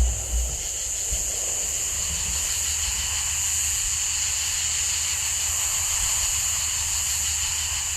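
A steady high hiss with a faint low rumble underneath, left after the last firework bursts. The rumble of the final bursts dies away within the first half second.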